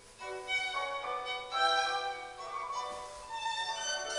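Background music with a violin playing a melody of changing notes.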